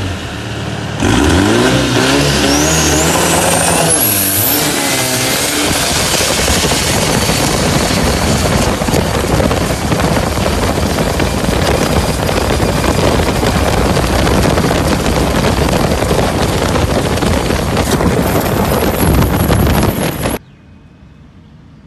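Thai longtail racing boat's engine opening up about a second in, its pitch climbing for a few seconds, then running flat out with rushing water and spray. The sound cuts off suddenly near the end.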